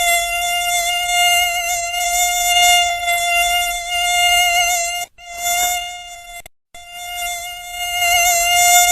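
Mosquito's high-pitched wing whine, a steady buzzing tone with many overtones that wavers slightly. It cuts out briefly twice a little past the halfway point.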